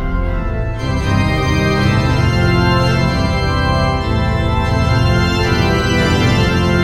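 Background music of sustained, held chords, organ-like in tone, with higher notes joining about a second in.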